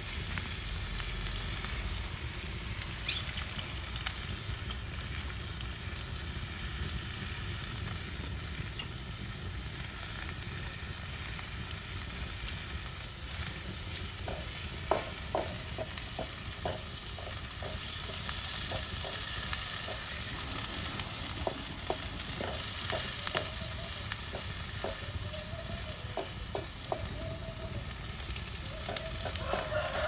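Diced onion and sliced peppers sizzling steadily in olive oil in a black steel pan over a wood fire, with a few sharp pops. From about halfway, a wooden spoon stirs them, scraping and knocking against the pan.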